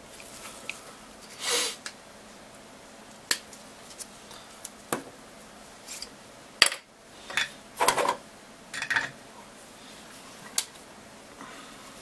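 Scattered small clicks, taps and rustles of gloved hands handling a tablet circuit board and small tools on a silicone repair mat, with the sharpest tap a little past halfway.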